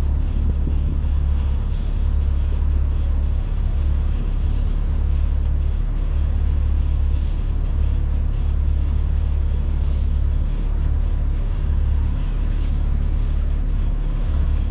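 Fishing boat's motor running with a steady low rumble.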